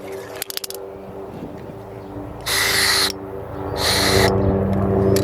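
Helicopter passing overhead, a steady low drone that grows louder toward the end. Two short hissing bursts come about a second apart in the middle, and a quick rattle of clicks about half a second in.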